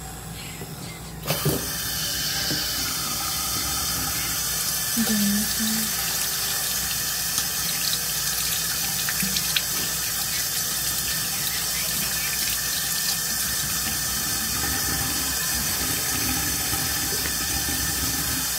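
Tap water running into a sink, turned on about a second in and then pouring steadily.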